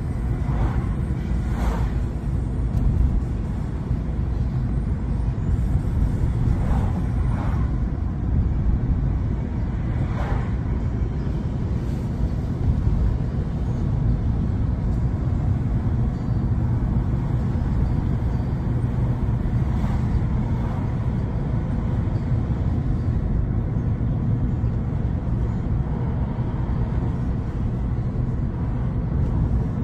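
A car driving along: steady low road and engine rumble.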